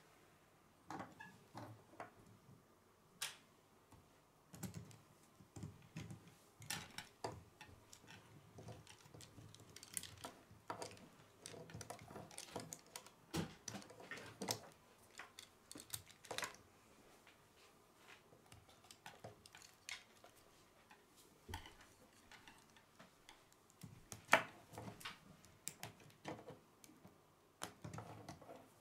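K'nex plastic rods and connectors being fitted together by hand: an irregular scatter of small plastic clicks and snaps.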